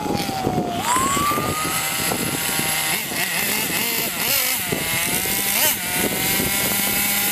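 Hyper .21 two-stroke nitro engine of a Hobao Hyper 7 RC buggy running. Its pitch jumps up about a second in, wavers briefly a few times around the middle, then holds a steady idle.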